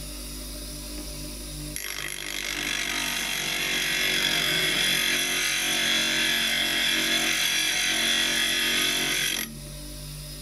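Bench grinder motor running steadily. About two seconds in, a steel chisel is pressed to the spinning stone wheel, giving a loud hissing grind. The grind stops abruptly near the end as the chisel comes off, leaving the motor running free.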